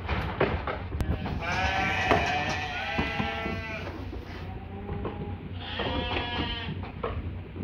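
Sheep bleating: two long, wavering bleats, the first a second or so in and the second near the end.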